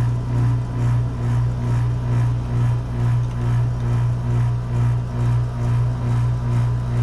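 An HVAC unit running: a steady low mechanical hum with a regular throb in loudness.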